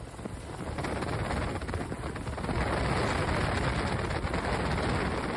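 Rough, crackling rush of wind and aircraft noise on a phone microphone in flight. It grows louder about a second in and again midway.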